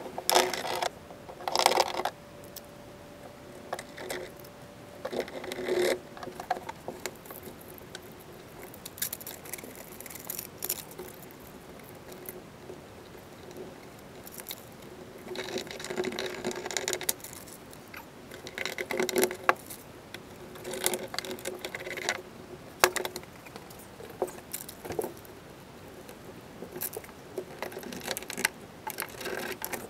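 Irregular bursts of rustling and scraping from hand work on foil-faced Dynamat sound deadener being fitted and pressed down on a car floor, over a faint steady hum.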